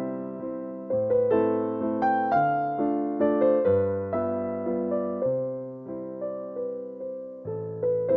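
Background piano music: gentle chords struck about once a second, each note fading out before the next.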